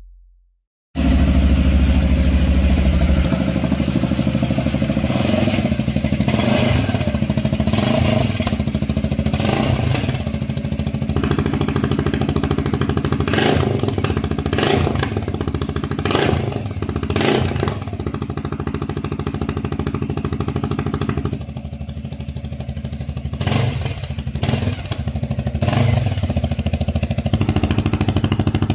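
Segway AT6 quad's engine running through a SHARK aftermarket exhaust with a flap valve, starting about a second in. It is heard first with the flap open in the loud mode, with several short rises in level, and then with the flap closed in the quiet mode.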